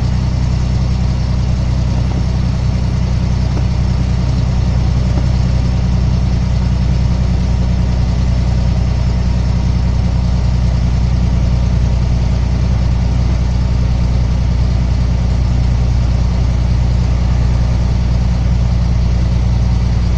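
Truck engine's steady low drone and tyre and road noise, heard from inside the cab while cruising at a constant highway speed.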